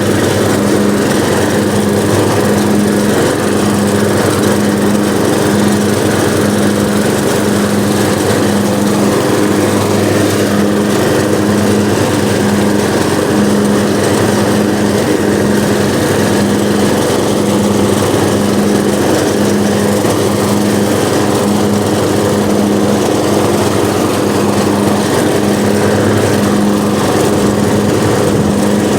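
Small riding lawn mower engine running steadily after firing up on stale gas following a winter sitting outside.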